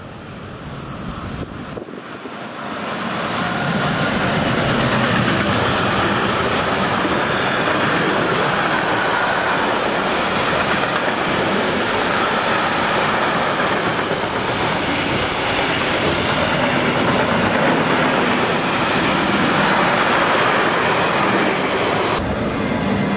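Freight train passing close by on the track: the sound builds over the first few seconds as the locomotive approaches, then holds as a long run of covered freight wagons rumbles and clatters over the rails. Near the end the sound changes abruptly to a different, higher whistling sound.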